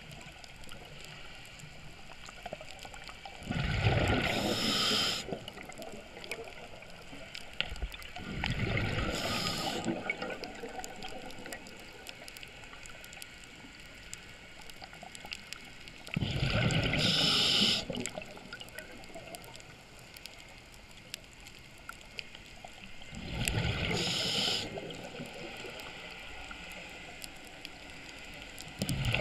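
A scuba diver's breathing through the regulator, heard underwater: four loud bubbly gurgles of exhaled air, each lasting a second or two and coming about every six to seven seconds, over a steady low hiss.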